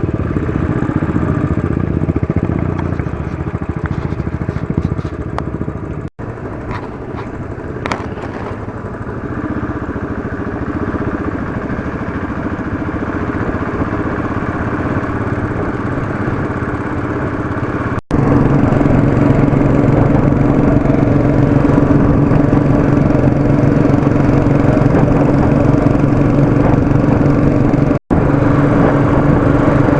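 Royal Enfield Classic 500's single-cylinder engine running as the motorcycle rides along. The sound drops out briefly three times, and the engine is louder and steadier in the last third.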